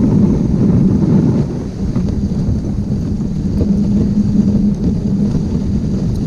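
Dog sled running along a packed snow trail: a steady, loud rumble and hiss from the sled moving over the snow, with wind buffeting the microphone.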